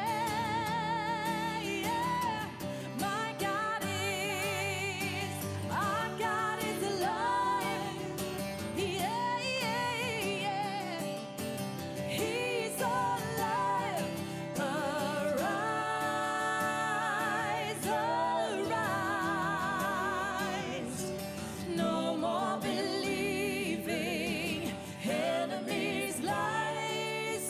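A woman singing a Christian worship song over instrumental accompaniment, with vibrato on her long held notes.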